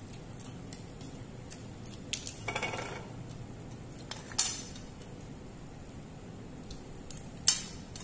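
Scattered sharp clicks and clinks of crab shell being pulled apart by hand and set down against a ceramic plate, with a short crackling stretch about two and a half seconds in and the loudest clicks about four and a half and seven and a half seconds in.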